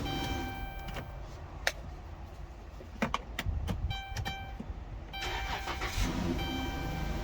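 Keys clicking and jangling at the ignition, with a dashboard chime repeating. About five seconds in, a car engine cranks and starts: a newly programmed key being tested.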